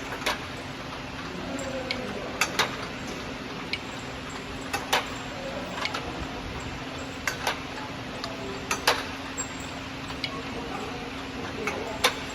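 Glass jars with metal twist-off caps passing through an acoustic vacuum leak tester, giving irregular sharp ticks and clinks, some in quick pairs, over a steady machine hum.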